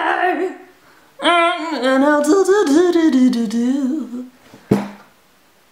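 A woman humming a wavering, sing-song tune in two phrases, the second one longer. A single sharp click follows about five seconds in.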